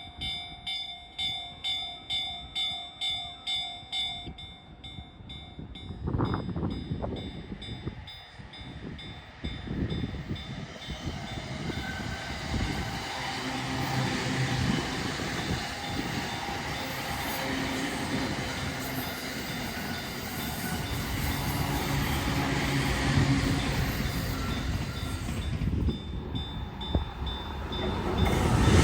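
Japanese level-crossing warning bell clanging about twice a second. From about six seconds in, a train approaches and runs through the crossing, its rumble growing steadily louder, with the bell still ringing faintly underneath.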